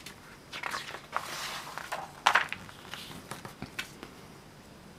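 Pages of a paper Hornby Dublo catalogue being turned by hand: paper rustling and crackling, loudest in a sharp crackle a little over two seconds in.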